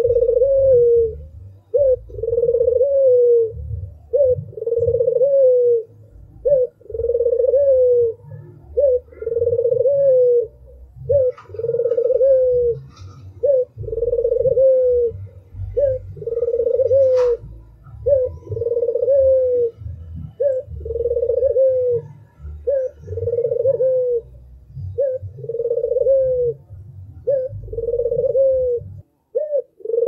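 White Barbary dove (puter) cooing over and over, each phrase a short note followed by a longer drawn-out coo, about one phrase every second and a half, over a low rumble.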